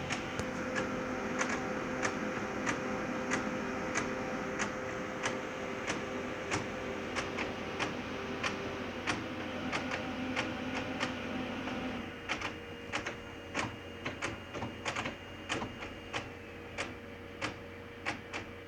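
Ricoh SP C252SF colour laser printer running as it prints: a steady mechanical whir with a sharp click about every half second or so. About twelve seconds in the whir drops away and the clicks go on, less evenly spaced. The new printer makes this noise on its first prints, which the service centre says is normal.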